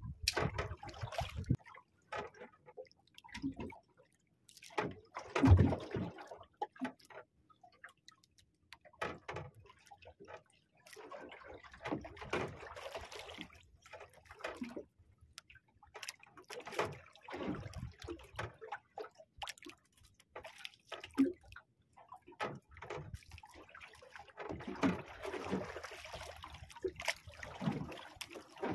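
Sea water sloshing and lapping against the hull of a small boat in irregular bursts, with a louder slap about five seconds in.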